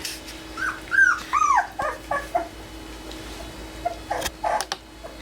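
Four-week-old Aussiedoodle puppy whimpering: a run of short, high, arching whines about a second in, followed a couple of seconds later by a few sharp clicks.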